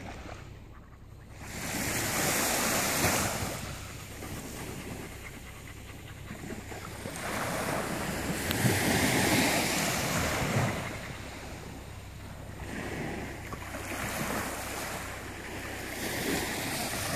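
Small sea waves breaking and washing up the beach, the surf swelling and fading in surges a few seconds apart.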